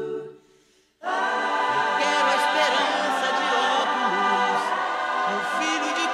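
Choir singing a cappella in many-voiced harmony. It comes in together about a second in, after a brief hush.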